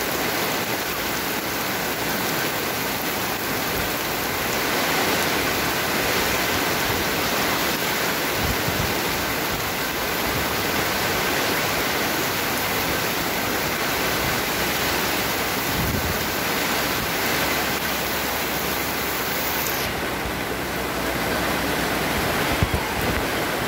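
Heavy rain pouring down onto a paved street and puddles, a steady dense hiss. Near the end the hiss turns duller, with a few low thumps.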